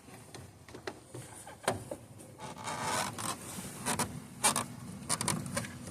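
Hand-fitting an H11 LED headlight bulb into the headlight housing: scattered sharp plastic clicks and a rasping scrape about halfway through as the bulb is worked into place.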